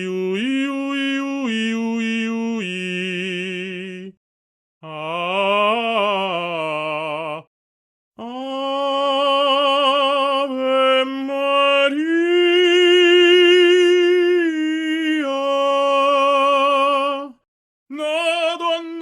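Short clips of operatic singing played one after another, each a few seconds of held, sung notes with vibrato, separated by brief silences. The first is a low voice holding notes; the second glides up and back down; the longest, about eight seconds into the stretch, sits higher and swells; a new phrase starts near the end.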